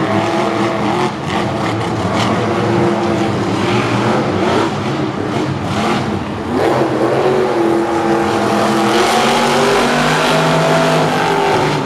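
Monster truck supercharged V8 engines revving hard under racing load, their pitch rising and falling as the throttle is worked.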